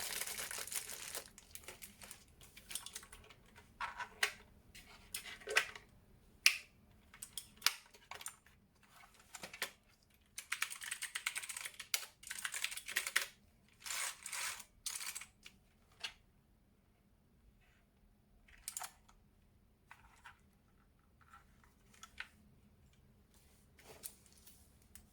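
Keys of an Armaggeddon MKA-61C 60% mechanical keyboard being pressed: scattered single clicks and short runs of rapid clatter, sparser in the second half. It opens with about a second of packaging rustle.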